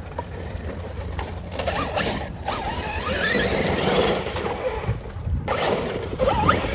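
Losi DBXL-E 2.0 electric RC buggy's brushless motor whining, its pitch rising and falling as the throttle is worked while the buggy is stuck.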